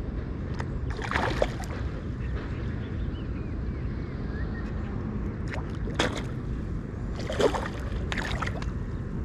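Steady low rumble of a boat on the water, broken by several short, sharp noise bursts about a second in and again between six and eight and a half seconds in.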